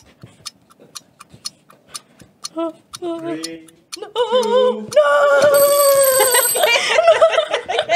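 Countdown timer ticking about four times a second, then a timer alarm ringing about five seconds in as time runs out, with women's voices crying out over it.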